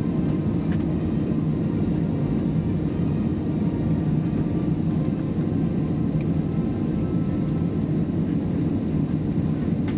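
Steady low rumble and hum of an Airbus A321's cabin with the engines running at low power before takeoff; no rise in power.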